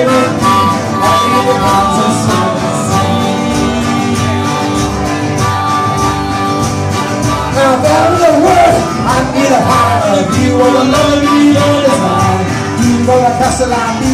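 Live band playing an instrumental passage over a steady beat. A wavering lead line comes in around the middle.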